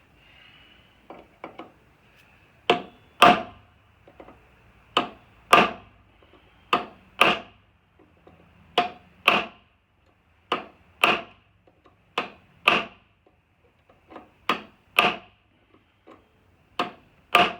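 Hammer striking a drift punch to drive out a seized woodruff key: sharp metal-on-metal blows in pairs, a pair about every two seconds, eight pairs in all, each blow with a short ring. A few light taps come first.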